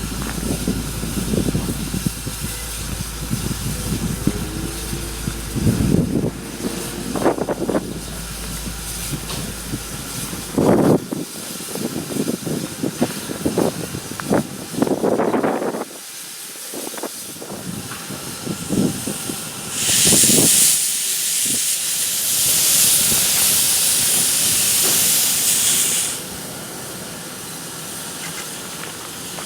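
Steam locomotive letting off steam: a loud, even hiss starts about two-thirds of the way in, lasts about six seconds and cuts off abruptly. Before it come scattered knocks and a low hum that stops about a third of the way in.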